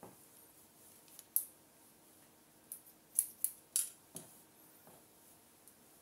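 Haircutting scissors snipping through long hair: about half a dozen short, crisp cuts, bunched between one and four seconds in.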